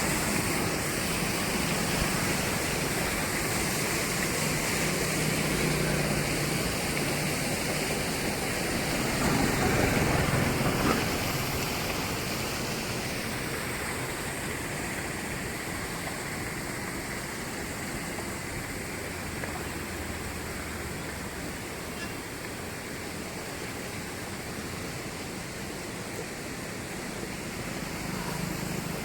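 Steady rushing noise, louder at first with a swell about ten seconds in, then settling a little quieter.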